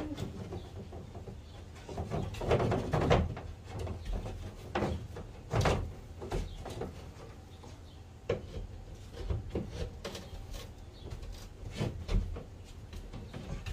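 Electrical cable being fed into a plywood wall cavity and worked through a panel seam, making irregular knocks, scrapes and rustles against the wood.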